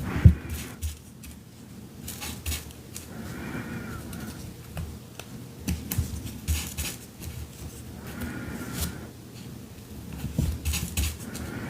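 Hand work on a paper collage: scattered light taps and clicks of tools and materials being handled, with a few soft low thumps and two brief soft rustles of paper pieces being laid and glued down.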